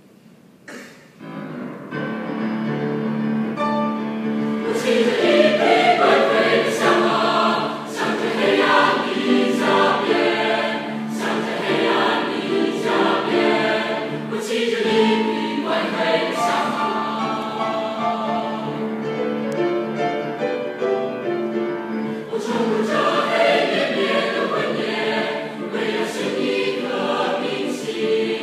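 Mixed choir of men's and women's voices singing in parts, beginning about a second in after near silence, with sustained chords that shift as the piece moves on.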